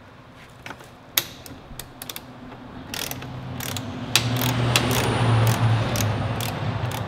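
Ratcheting socket wrench clicking as it turns a bolt at the foot of an electric dirt bike's front fork. A few separate clicks at first, then rapid steady clicking from about three seconds in.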